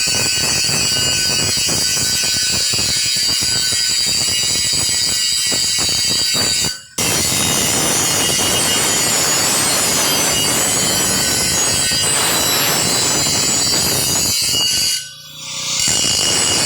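Shielded metal arc (stick) welding arc crackling and sizzling steadily on pipe. It breaks off briefly about seven seconds in and again near the end, then picks up again.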